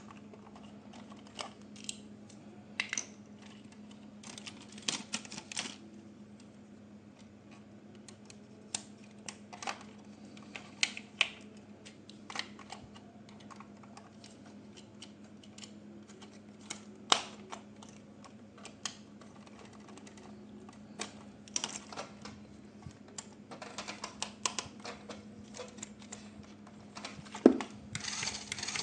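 Irregular clicks and taps of hard plastic being handled, toy parts and packaging from an RC toy unboxing, some in quick clusters, over a steady low hum.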